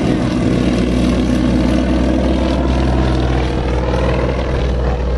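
Engine and propeller of a yellow single-engine propeller airplane flying a low pass, a loud, steady running sound.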